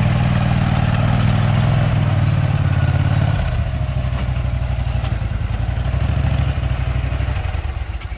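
Engine of an Iseki riding field-management machine running steadily, then dropping to a lower, rougher note about three seconds in and slowing further near the end as it is throttled back.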